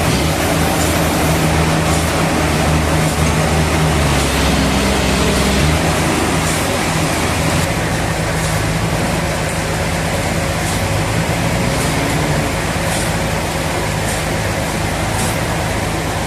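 Sawmill machinery running: a steady motor drone whose low hum changes pitch about five seconds in, over a continuous hiss, with faint clicks now and then.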